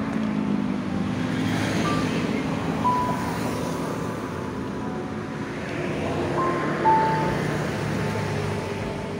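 Steady road traffic noise from passing vehicles, with a few faint held notes at times over it.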